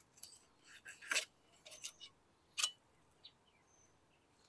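Fillet knife working a black sea bass fillet free on a plastic cutting board: a scattered run of short, sharp clicks and scrapes as the blade slices through the fish and knocks the board. The two loudest come a little over a second in and about two and a half seconds in.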